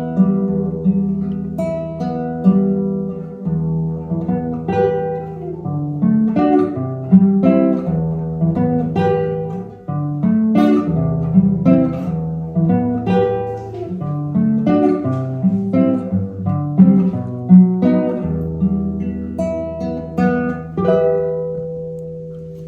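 Acoustic guitar played fingerstyle, a melody of plucked notes left to ring, fading away at the end.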